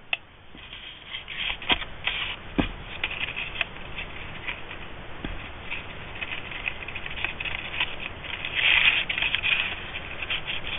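Rustling and crinkling of a folded designer-series paper treat wrapper and ribbon being handled and tied, with scattered small clicks and taps; the rustle swells briefly about nine seconds in.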